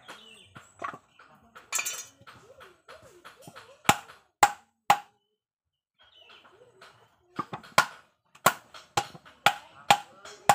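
Claw hammer striking a teak wood frame as it is nailed together: three sharp blows about four seconds in, then a steady run of blows about two a second from about seven seconds on.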